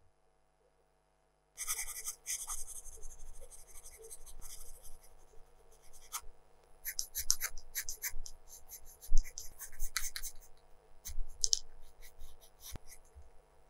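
Colored pencil scratching on drawing paper. After a second and a half of silence comes a few seconds of steady shading, then a run of short, separate pencil strokes.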